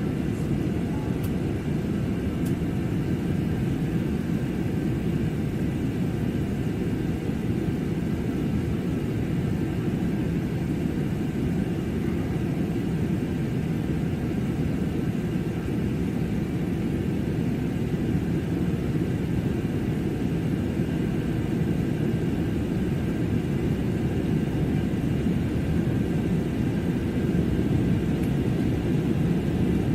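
Steady cabin noise inside an airliner in flight: a constant low roar of engines and airflow, with faint steady higher tones running through it.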